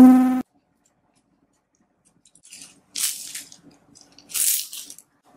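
Hands squeezing and pressing a lump of white slime, giving a few short wet squishing noises. The loudest comes about four and a half seconds in.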